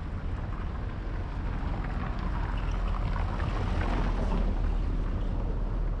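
Wind rumbling on the microphone with outdoor street noise, the wash of noise swelling and fading about halfway through.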